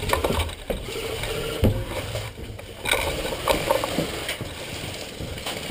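Irregular knocks, clicks and rattling from handling an airsoft rifle, carried straight into a camera mounted on its barrel as the player moves.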